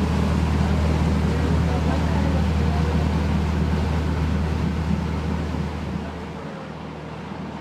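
A motor vessel's engine drones steadily under the rush of water along the hull. At about six seconds the sound drops to a quieter, lower hum.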